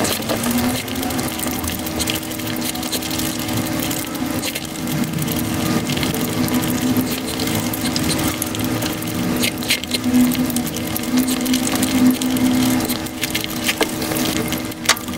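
Eating sounds of chicken biryani eaten by hand, with chewing, lip smacking and fingers squelching through rice, played back at five times speed so that they blur into a fast, dense clicking with a steady low hum underneath. There is a sharp click near the end.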